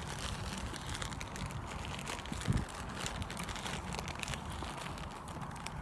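Irregular light crackling and crinkling, many small clicks close together, with one dull thump about two and a half seconds in.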